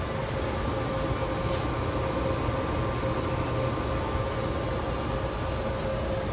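Steady roar of a gas-fired babbitt melting furnace's burner, with a faint steady hum over it, as the molten babbitt is held at about 700 to 800 degrees.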